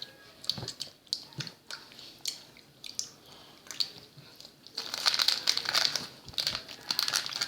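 Plastic snack packet crinkling as coloured candies are picked out of it: scattered crackles at first, then steady, louder crinkling from about five seconds in.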